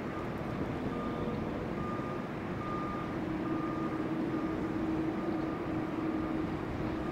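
A vehicle reversing alarm beeping in a regular rhythm, a little more than once a second, over a steady engine rumble, with a low steady hum growing stronger about halfway through.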